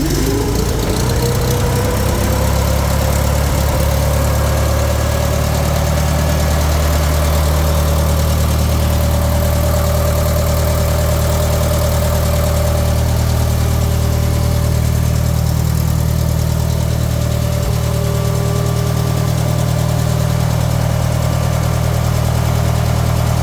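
International Harvester skid steer's gasoline engine running at a steady idle just after starting, the pitch rising slightly over the first couple of seconds before settling. It now runs on an electronic ignition kit fitted in place of the points, with the timing freshly set.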